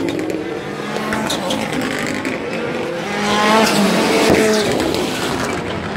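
Rallycross SuperCars racing past at full throttle, their engines rising in pitch as they accelerate. The sound is loudest as a car passes a little past halfway, with a few sharp cracks among the engine noise.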